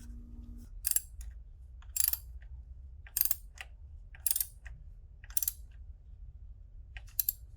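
Ratchet wrench with a socket turning an oil filter cap, giving six short bursts of ratchet clicks about once a second.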